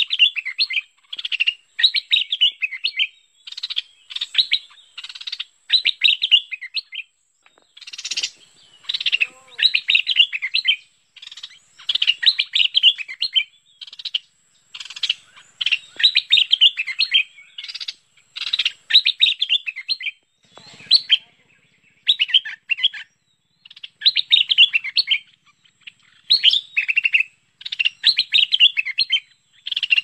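Stripe-throated bulbul calls: short, bubbly chattering phrases of quick notes, repeated about once a second with brief pauses. This is a recorded lure call played to attract bulbuls.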